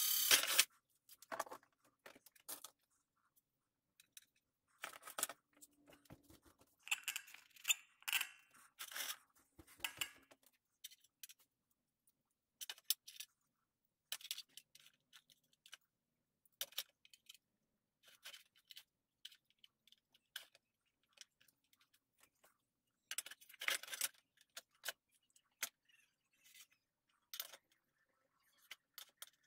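A cordless drill running in thin aluminium sheet stops about half a second in. After that come scattered light clicks, taps and metallic clatter as a steel combination square, a marker and small parts are handled and set down on the thin aluminium chassis, with small bunches of clatter several seconds in and again near the end.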